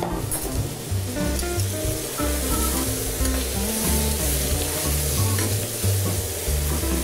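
Turkey ossobuco slices sizzling as they fry in oil in a pan, turned over with a fork and spoon. Background music plays under the steady sizzle.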